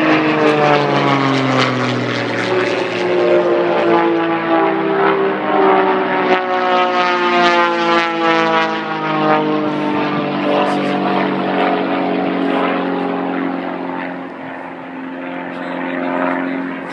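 Aerobatic biplane's piston engine and propeller droning overhead while it flies a smoke-trailing display. The engine note falls in pitch in the first couple of seconds, then sweeps up and down again midway as the plane manoeuvres and passes.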